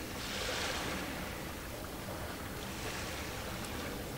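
Sea waves washing in twice, each a short swell of hiss, over a steady low rumble.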